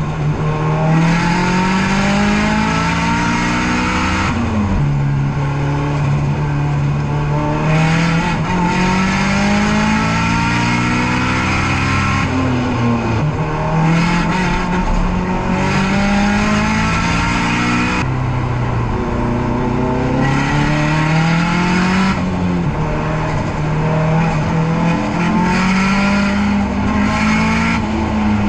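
Nissan S13's turbocharged SR20DET four-cylinder engine pulling hard on track, its revs climbing through each gear and dropping sharply at the shifts, about five times.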